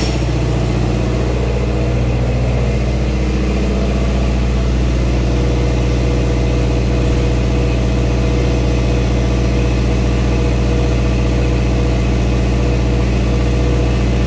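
2011 Subaru Outback's 2.5-litre flat-four engine idling steadily, heard at the tailpipe.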